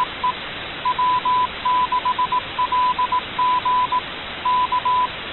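Morse code: a single steady-pitched tone keyed on and off in short and long beeps (dots and dashes), sent in quick groups over a constant static hiss, as heard from a shortwave receiver.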